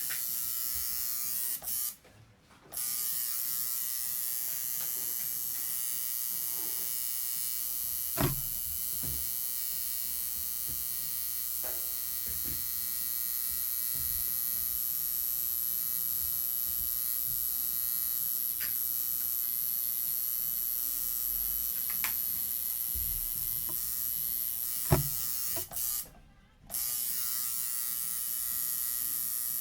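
Tattoo machine buzzing steadily. It stops twice for under a second, about two seconds in and again near the end, and there are a few light knocks in between.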